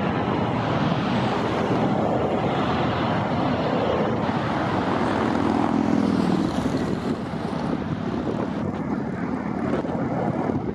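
Jet engines of a Boeing 737-800 on approach to land, a steady rushing noise with a low hum that eases off after about seven seconds.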